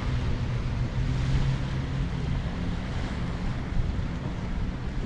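Steady wind noise on the microphone over a wash of small waves on the beach.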